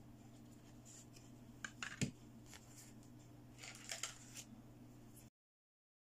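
Light plastic clicks and rustling as a toy plastic clipboard and its paper chart are handled, with one sharper tap about two seconds in, over a low steady hum. The sound drops out completely about five seconds in.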